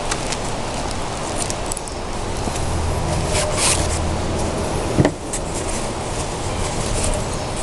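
Packaging being handled and unwrapped: scattered crinkles and sharp clicks, the sharpest about five seconds in, over a steady low rumble.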